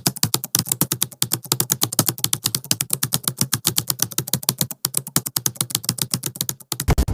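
Rapid, even keyboard-typing clicks, about ten or more a second, with short breaks about a second in and near five seconds, and a heavier hit near the end.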